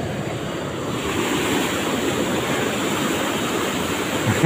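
Fast river rapids rushing over rocks in a steady noise of water, a little louder about a second in. A brief low thump comes near the end.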